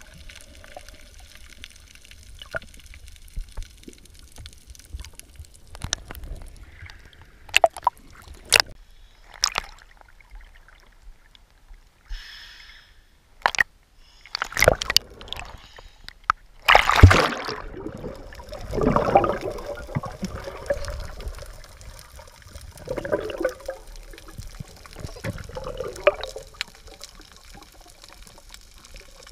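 Underwater water noise as picked up by a camera beneath the surface: a low, steady rumble with scattered sharp clicks, then a loud burst of bubbling a little past halfway, followed by a few further rough swells of bubbling.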